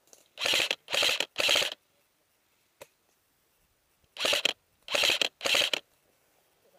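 An airsoft electric rifle firing three short bursts of rapid clicking shots, then after a pause three more bursts.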